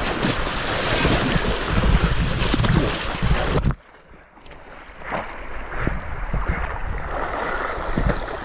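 Rushing river water splashing close to the microphone, which cuts off suddenly a little under four seconds in; after that only a quieter water hiss with a few faint knocks.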